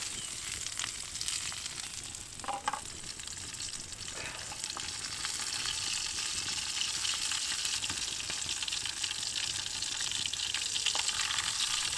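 Scarlet elf cup mushrooms frying in a hot pan over a campfire: a steady sizzle with fine crackles, and a brief clatter about two and a half seconds in.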